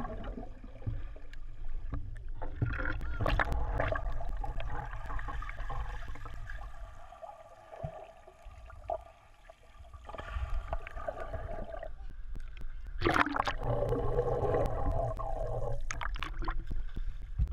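Muffled underwater rumble and bubbling as swimmers dive and kick in a swimming pool, heard through an underwater camera's housing. It grows briefly quieter a little past the halfway point.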